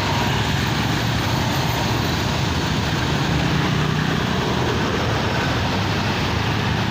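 Large tour bus's diesel engine running loud and steady under load on a steep climb, a heavy low rumble.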